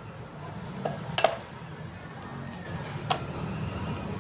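An egg knocked against the rim of a ceramic bowl to crack it open: a few sharp taps, the loudest about a second in and another about three seconds in, over a low steady hum.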